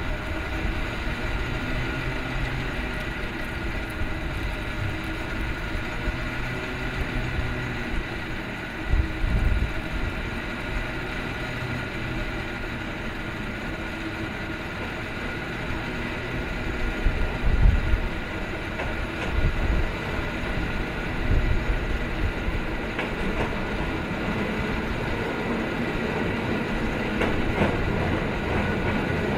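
San Francisco-style cable car approaching on its rails, a steady rail rumble with the whir of the cable running in its slot beneath the street, growing louder near the end. A few low thumps come through about a third and two-thirds of the way in.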